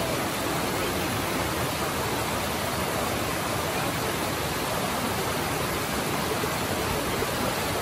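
Steady rushing of a rocky stream flowing over boulders and small cascades.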